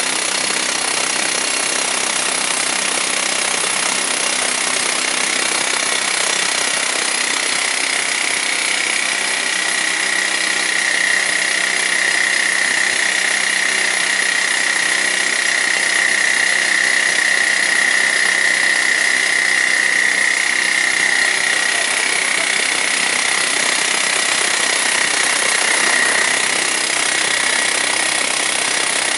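Hydraulic rock drill hammering steadily as it bores into reinforced concrete. A high whine runs through it and is strongest through the middle stretch.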